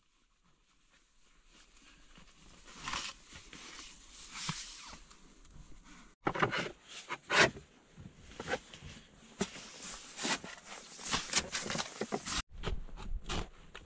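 Small shovel digging and scooping snow: a run of irregular crunching scrapes. The scrapes are faint at first and come louder and closer together from about six seconds in.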